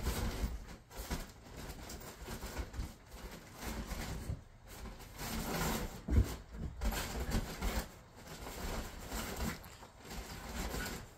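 Small dogs making faint, irregular sounds as they move about on a couch.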